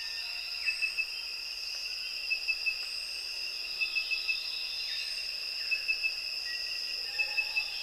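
Central African rainforest insects trilling steadily at two high pitches. Over them a sharp chirp repeats in groups of three, about every second and a half.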